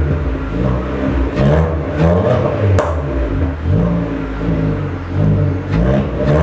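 Peugeot 206's 1.6 16v TU5JP4 inline-four revved in repeated short throttle blips through a sports rear muffler, the note rising and falling with each blip. A sharp exhaust pop comes a little under three seconds in.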